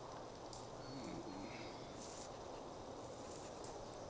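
Quiet outdoor ambience: a steady faint hiss with a few soft rustles and short high ticks, and a brief thin high whistle about a second in.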